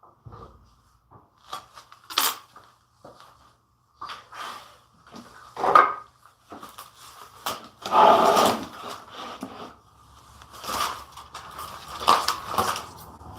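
Irregular knocks, clatter and scraping of tools and wood being handled on a workbench, with the sharpest knock about six seconds in and a longer scraping rustle around eight seconds.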